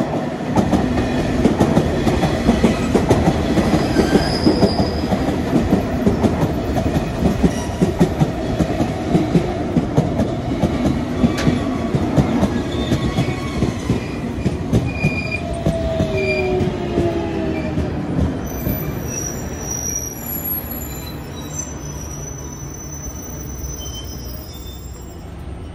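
A train rolling past close by, its wheels clicking over rail joints in a fast, even rhythm. It fades away after about eighteen seconds, and high-pitched wheel squeals sound near the end.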